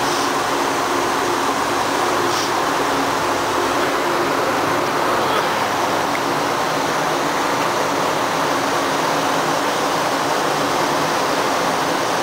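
Steady rushing noise with a low machinery hum underneath, unchanging throughout.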